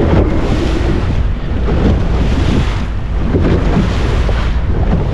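Wind buffeting the microphone over the rush and splash of waves against the hull of a moving boat.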